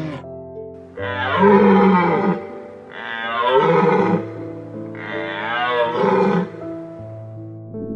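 A lion roaring three times, each call long and wavering in pitch, over soft background music.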